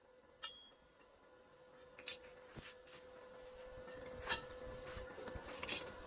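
Four short, sharp metallic clinks as the galvanized square steel tubing frame is handled, over a faint steady hum that grows slightly louder in the second half.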